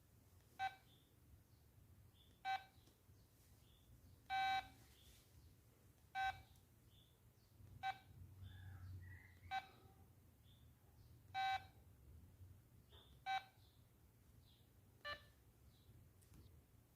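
LG MD5330 mobile phone's keypad beeping at each key press: nine short beeps, about one every two seconds, a couple of them held slightly longer.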